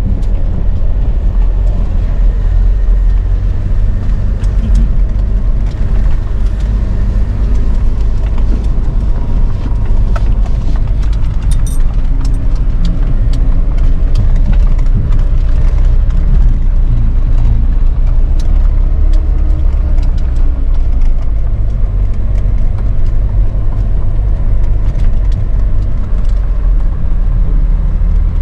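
A vehicle's engine and drivetrain running steadily, heard from inside the cab while driving over a rough dirt road, with scattered light knocks and rattles from the bumps.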